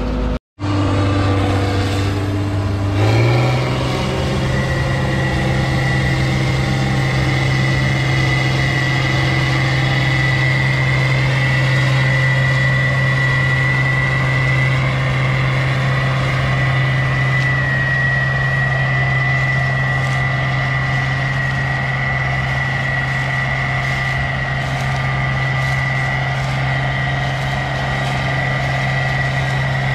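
A vehicle's engine running steadily, its speed stepping up about three seconds in and then holding, with a steady high whine over it.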